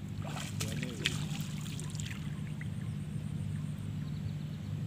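Water splashing and trickling at the shoreline in a short flurry during the first two seconds, over a steady low hum.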